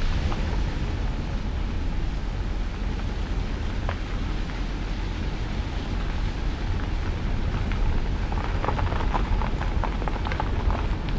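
Wind buffeting the microphone with a steady low rumble, over the rush of wind through the forest canopy. A patch of crackling rustle comes in about eight seconds in and lasts a few seconds.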